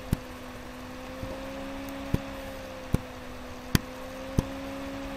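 Computer mouse button clicking about five times at uneven intervals, sharp and brief, over a steady low electrical hum from the recording setup.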